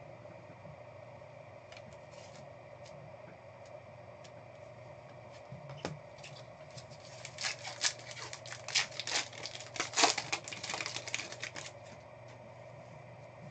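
A trading card pack's foil wrapper crinkling and tearing open, a dense run of sharp crackles from about seven seconds in, loudest around ten seconds, as the cards are pulled out. A low steady hum runs underneath.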